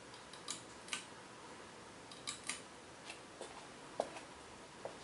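Rain outside: scattered, irregular sharp drip ticks over a faint steady hiss.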